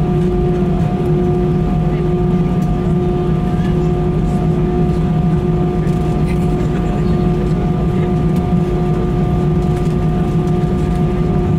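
Airbus A320's CFM56 jet engines running at idle as the airliner taxis, heard inside the cabin as a steady drone with several held tones.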